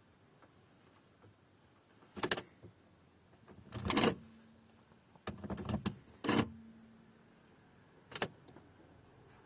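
About five short knocks and rattles, spaced a second or two apart over a quiet background, some followed by a brief low hum; no engine is running.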